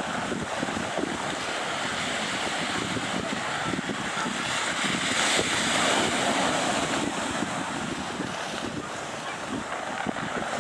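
Steady rushing noise of wind on the microphone, with the distant engine roar of a Boeing 757 on final approach mixed in, swelling about five seconds in and easing off again.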